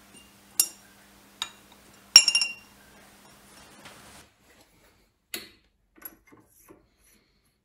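Small brass parts dropped into a glass jar of acetone clink against the glass three times, the third loudest with a short glassy ring. After a pause come a few lighter knocks of metal being handled at the lathe.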